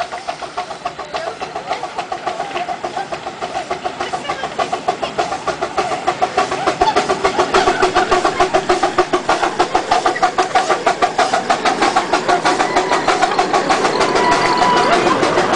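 Miniature steam locomotive working a full passenger train, its exhaust beating in quick, even chuffs, several a second, that grow louder as it approaches and passes.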